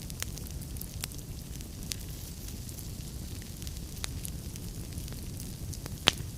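Log fire burning in a fireplace: a steady low rumble with scattered sharp crackles, and one loud pop near the end.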